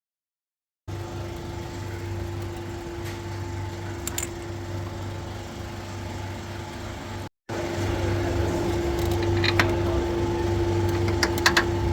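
Toyota Passo Moda's three-cylinder engine running steadily at idle, a constant hum with a low rumble and a few light clicks. It starts after about a second of dead silence, drops out briefly about seven seconds in, and is louder after the break.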